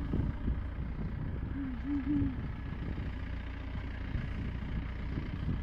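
Safari jeep engine idling steadily, a continuous low hum, with a brief low wavering tone about two seconds in.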